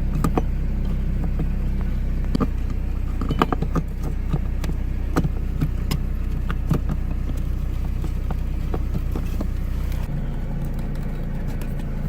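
Steady low hum of the car running, with scattered light clicks and knocks as the blower motor resistor is fitted back into its slot under the dash. The deepest part of the hum drops away about ten seconds in.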